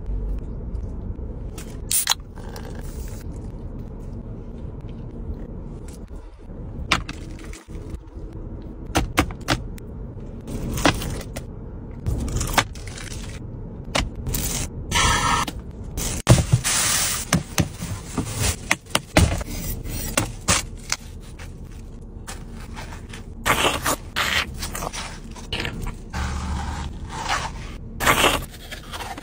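Close-up food-handling sounds: repeated scrapes, crackles and clicks of utensils against dishes. A flat server cuts through crisp pastry on a metal tray, and a spoon scrapes into watermelon flesh, over a steady low hum.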